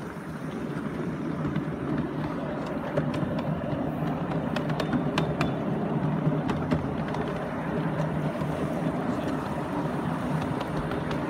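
Ride-on 7¼-inch gauge miniature steam train running along its track: a steady running rumble of the wheels on the rails, with a few sharp clicks scattered through the middle few seconds.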